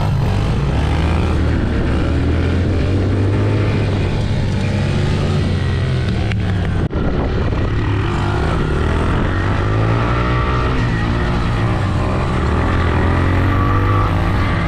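A 125cc dirt bike's single-cylinder engine running under throttle while wheelieing, its pitch rising and falling with the throttle. There is a brief break in the sound about seven seconds in.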